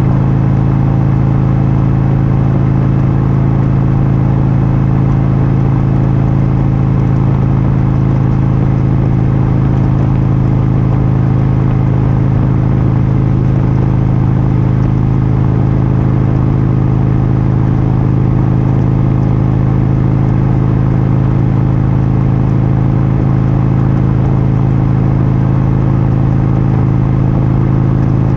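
Motorcycle engine running at a steady cruising speed on the highway, a constant low drone with road and wind noise and no change in pitch.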